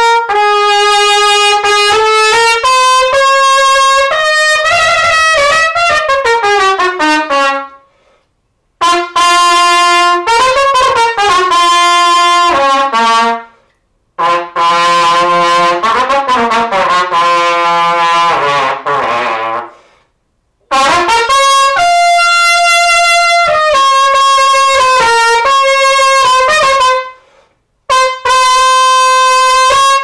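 Unaccompanied trumpet playing fast, agile phrases with quick runs and sliding falls in pitch. Four short pauses for breath break the playing, every six or seven seconds.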